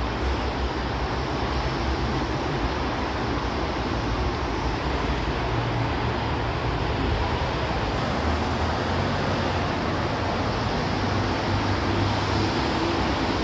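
Steady road-traffic noise: a low rumble under an even hiss.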